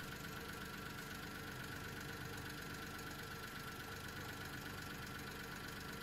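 Mitsubishi Minicab engine idling steadily at about 970 rpm, heard faintly from inside the cab. The engine is running lean at idle from low fuel pressure, which the mechanic puts down to a failing fuel pump.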